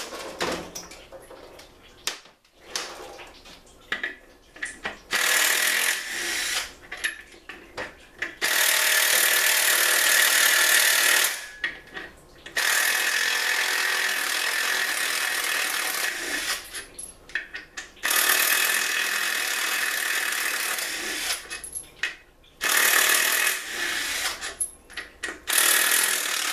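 A hand-held power tool running in stop-start bursts of two to four seconds as it works on the case of a Ford C6 automatic transmission during teardown. Short knocks and clicks of handled metal parts come in the first few seconds.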